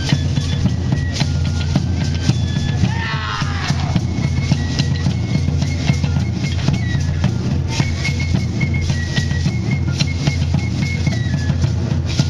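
Live drums beating a steady, dense rhythm, with high held notes sounding above them.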